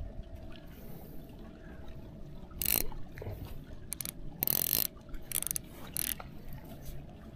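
Fishing reel and tackle being handled: a few short spurts of ratcheting clicks and rustling, the longest about halfway through, over a faint steady hum.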